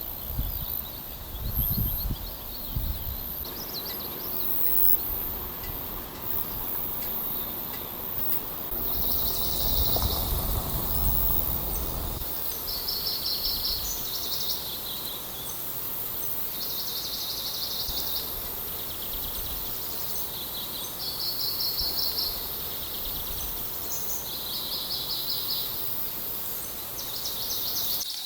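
Forest birdsong: a small songbird repeats short, quick trilled phrases every couple of seconds over a steady background hiss. Low rumbling noise fills roughly the first third.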